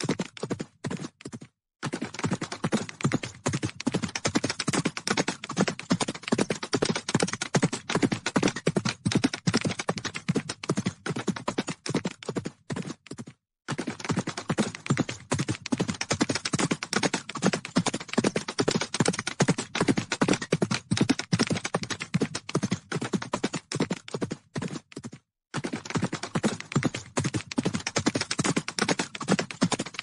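Hooves of a large herd of horses galloping: a dense, rapid drumming of many hoofbeats that cuts out briefly three times, near the start, about midway and near the end.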